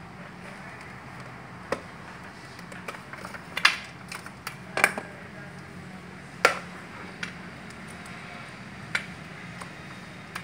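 Cable plugs and an HDMI-to-VGA adapter clicking and clacking as they are handled, a handful of sharp clicks with the loudest around the middle, over a steady low hum.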